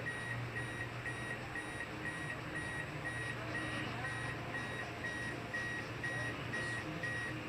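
An electronic beep repeating evenly about twice a second, over a steady low hum.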